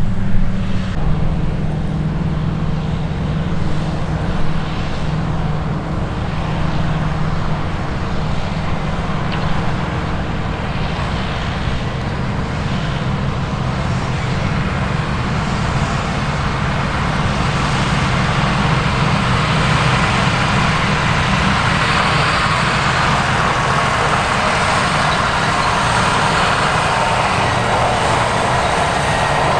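Heavy harvest machinery with a large diesel engine running steadily, and a mechanical rushing noise that grows louder through the second half.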